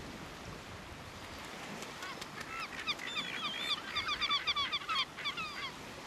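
Caspian tern calling: a rapid run of short, high, downslurred notes, about five or six a second, starting about two seconds in and stopping about five seconds in.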